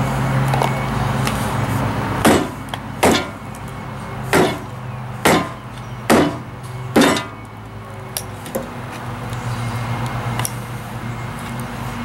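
Six hammer blows on a blender motor wrapped in a towel, spaced about a second apart, as a stuck metal piece is being beaten off the Nutribullet motor for scrap. A couple of light knocks follow.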